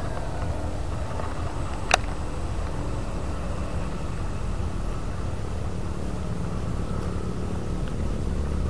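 Baitcasting reel engaging with one sharp click about two seconds in, as the retrieve begins, over a steady low rumble.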